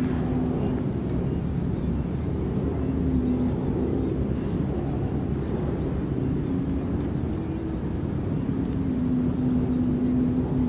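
A steady engine drone in the background, low and continuous, its hum fading and returning several times.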